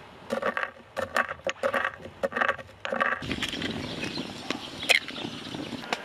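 Stone pestle pounding whole spices in a small stone mortar: about eight sharp knocks with a ringing tone over the first three seconds. From about three seconds in, softer rustling and handling noise, with one sharp clink near the five-second mark.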